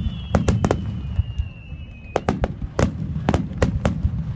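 Aerial firework shells bursting in a rapid series of sharp bangs, several a second, over a continuous low rumble. A thin high whistle falls slowly in pitch and fades out about halfway through.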